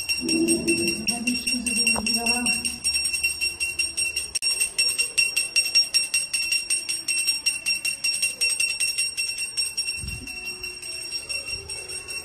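Brass puja hand bell rung continuously in worship, a fast, even ringing that grows softer about ten seconds in.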